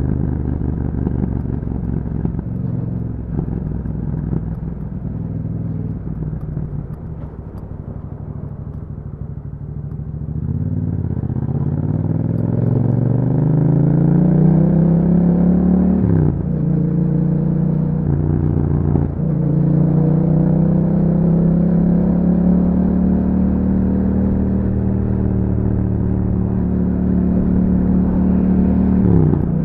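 2021 Yamaha MT-07's 689 cc parallel-twin engine running through an Akrapovic exhaust while ridden. It holds low, steady revs at first, then accelerates from about a third of the way in. Revs drop sharply at two quick upshifts around the middle, then hold steady at higher revs, with one more shift near the end.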